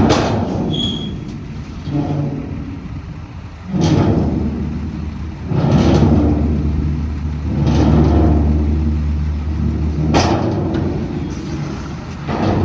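Heavy truck or earthmoving machine engine running under load and revving, with a steady low rumble and loud rushing bursts about every two seconds.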